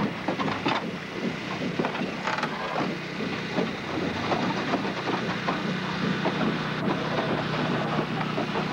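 Train in motion on the rails: a steady low rumbling hum with frequent irregular clanks and rattles.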